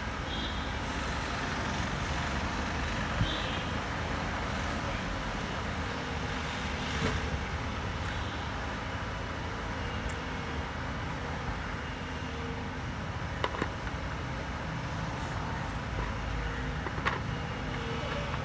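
A heavy machine's engine running steadily, with a few sharp clicks and knocks scattered through it.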